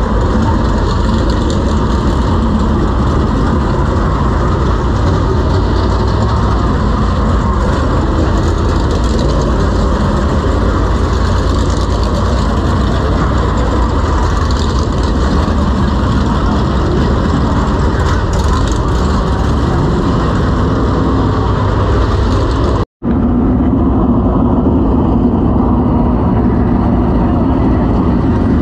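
Dirt late model race cars' V8 engines running loudly and continuously. The sound cuts out for a moment near the end, then returns as a steadier, lower engine note.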